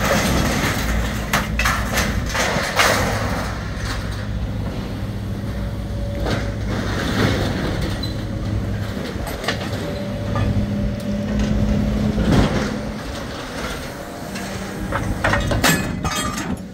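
Hydraulic excavator running with a steady low engine drone while its grapple works through a pile of scrap metal, with irregular metallic clanks and scrapes as pieces are gripped and knocked together, and a cluster of clanks near the end.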